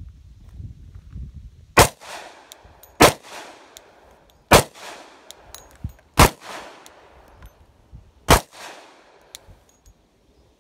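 Glock 29 pistol firing 10mm Auto rounds: five single shots at an uneven pace over about six and a half seconds, each followed by a short fading echo.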